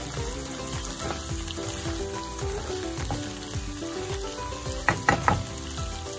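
Tofu and egg sizzling in a frying pan as a utensil stirs and turns them. There are a few sharp clacks of the utensil against the pan about five seconds in.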